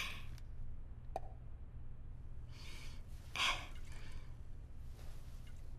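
A few short, breathy exhalations or sniffs, the loudest about three and a half seconds in, with a faint click about a second in.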